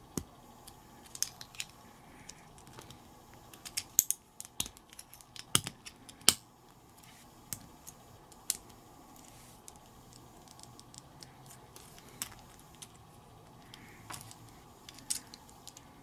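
Small plastic building bricks clicking and snapping together as they are pressed on by hand, with irregular sharp clicks and light plastic rattles, thickest a few seconds in and sparser toward the end.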